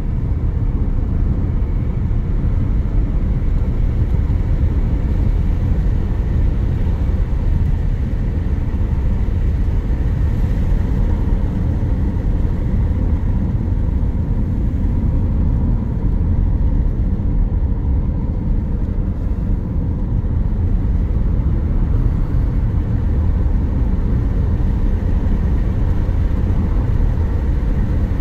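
A car driving steadily along a road: a continuous low rumble of engine and tyre noise that holds even throughout.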